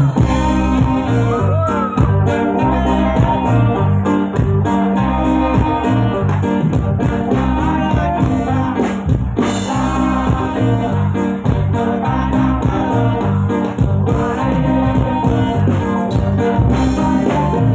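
Live band playing loud: saxophone, electric guitar, keyboard and drum kit over a repeating bass line.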